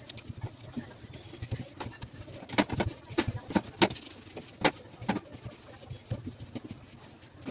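A series of irregular light knocks and clicks, like containers and fridge parts being handled and set down.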